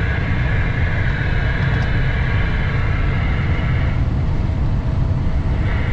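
Steady drone of a Western Star semi truck's diesel engine and road noise, heard inside the cab while cruising on the highway. A higher hiss over it drops away about four seconds in.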